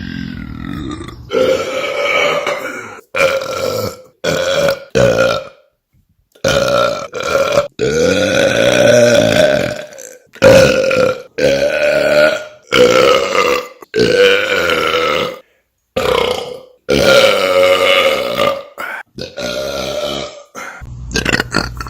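A man belching loudly, a dozen or so long, drawn-out burps one after another with short breaks between, the longest lasting about two seconds.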